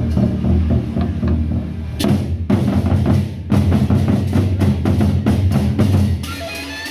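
Gendang beleq, the large double-headed barrel drums of Lombok's Sasak gamelan, beaten with sticks by an ensemble in a fast, dense rhythm with heavy low booms. Near the end the drumming drops away and steady ringing tones take over.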